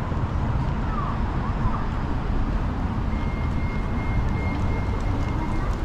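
Downtown street traffic noise, a steady low rumble. A thin high tone is held for about two and a half seconds in the second half.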